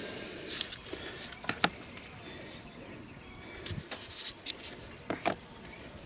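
Scattered light clicks and taps as small metal carburetor parts are handled and set down in a plastic parts tub, over faint steady background noise.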